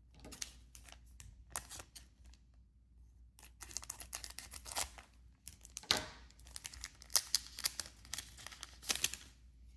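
Foil trading-card booster pack being torn open and crinkled by hand: a run of sharp crackles, sparse at first, then dense for most of the rest.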